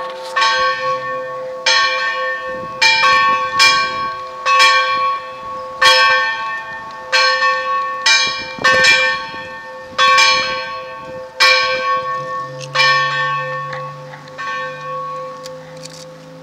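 Church bell ringing, struck over and over about once a second, each stroke ringing on into the next; the strokes thin out and die away near the end.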